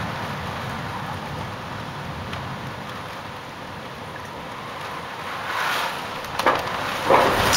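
Severe storm: a steady rush of wind and rain, with gusts buffeting the microphone and growing louder near the end.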